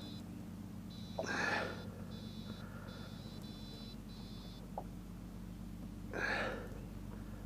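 Boat motor running with a steady low hum, with short bursts of high electronic beeping repeating every second or so. Two short, loud hissing bursts of noise, about a second in and again about six seconds in, stand out above them.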